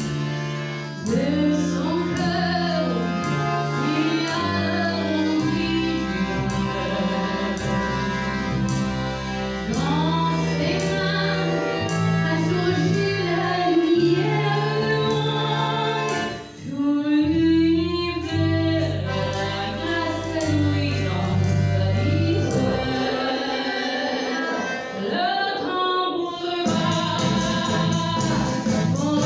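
A French chanson performed live: a woman singing into a microphone over a band with drums and piano. The music drops away for a moment a little past halfway, then carries on.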